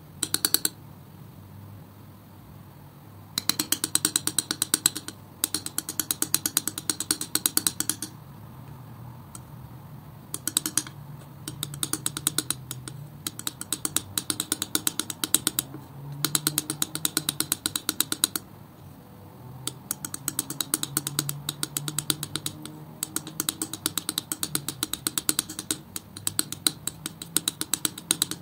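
Metal palette knife spreading and mixing thick acrylic paint, the tacky paint giving bursts of rapid sticky clicking with each stroke, broken by short pauses between strokes.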